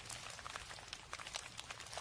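Rain falling, heard as a soft hiss full of irregular small drop ticks, with a low steady rumble underneath.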